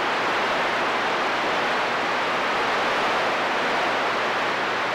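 CB radio receiver giving out a steady static hiss between transmissions.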